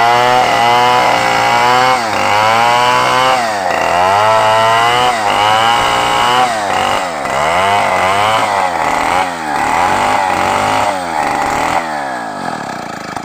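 Stihl MS 381 two-stroke chainsaw cutting through a timber beam at high revs, its engine pitch rising and dipping over and over as the chain bites into the wood, the dips coming quicker in the second half. Near the end the revs drop away to a lower idle.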